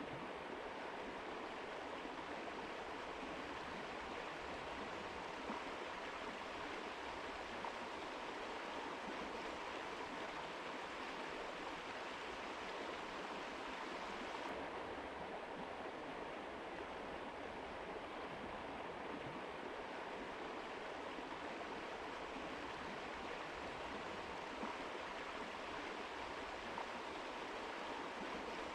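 Mountain river flowing: a steady rushing of water with no breaks, its highest hiss dimming slightly about halfway through.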